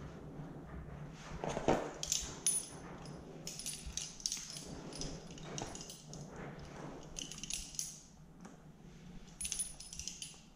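Light metallic clicks and scrapes of a small screwdriver and screws being worked on the plastic housing of a Makita MEA3201M engine chainsaw during cleaning. The clicks come in short clusters, about two seconds in, near eight seconds and again near the end.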